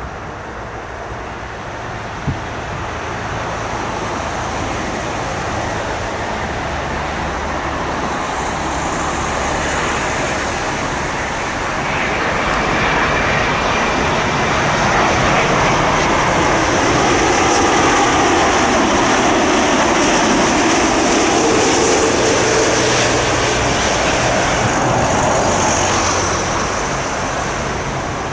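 Jet airliner's engines on landing approach, growing louder as it passes close by, with a high whine over a broad rush of noise and a falling pitch as it goes past. The sound eases off near the end.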